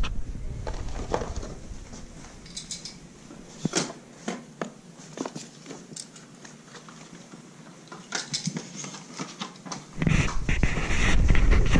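Scattered light clicks, taps and rustles of small items being handled in plastic storage bins. About ten seconds in, a louder low rumble of handling noise starts as the camera is carried while walking.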